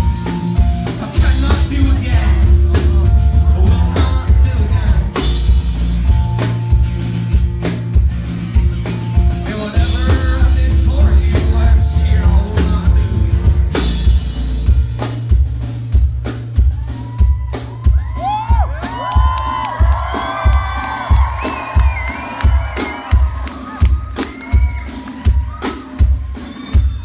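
Live rock band playing at full volume, with drums, bass and guitar. About halfway through, the band drops out to a steady drum beat while voices sing and shout over it.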